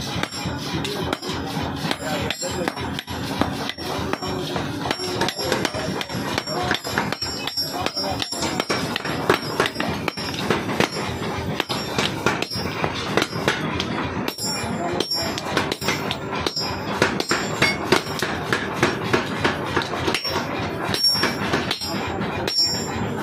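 Hand hammer striking red-hot steel on a steel anvil block while forging a small axe head, a steady run of sharp metallic blows roughly two a second, louder from about halfway on.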